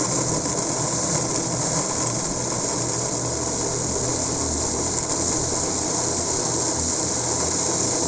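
Electric countertop blender running steadily at one even pitch, pureeing a thick mash of figs with a little added water.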